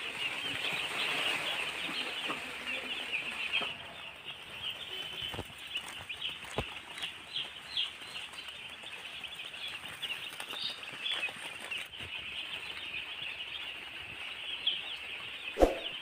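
A large flock of day-old broiler chicks in a brooder peeping all at once, a continuous high chorus of many overlapping short peeps.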